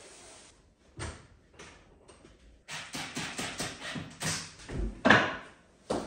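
Knocks, rustles and rapid clicking as a fabric flag is fixed to the wall above a window, then a heavy thump about five seconds in as a person steps down off a countertop, followed by a sharp knock.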